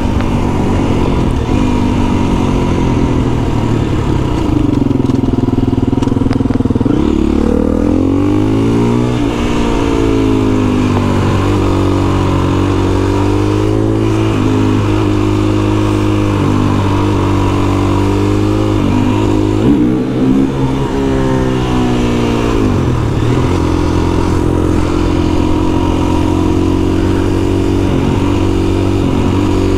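Husqvarna FE 350 single-cylinder four-stroke enduro engine under way, its pitch rising and falling as the rider works the throttle and gears. There is a short drop in revs about two-thirds of the way through, then it holds a steadier note.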